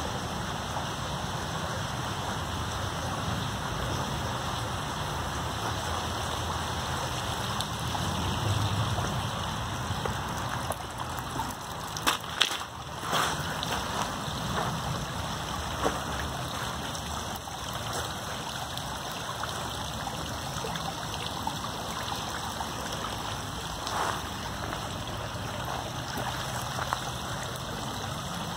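Steady rush of flowing water, with a few sharp knocks about twelve seconds in.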